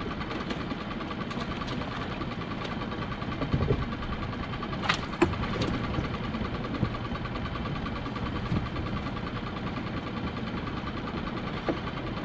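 Small fishing boat's engine idling steadily, with a few sharp knocks about four and five seconds in.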